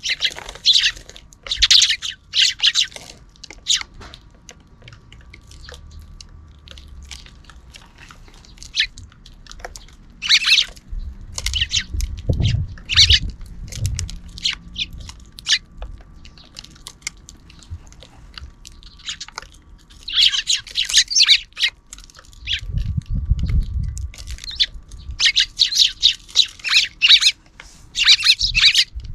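Sparrows chirping in clusters of quick, repeated calls that come and go, busiest near the start and near the end. Two stretches of low thudding rumble come in around the middle and again past two-thirds of the way.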